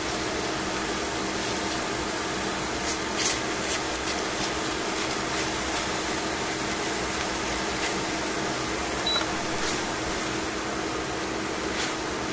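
Chicken pieces frying in a stainless steel pan, a steady hiss under a low steady hum, with a few short clicks of the utensil against the pan as it is stirred, the loudest about three seconds in.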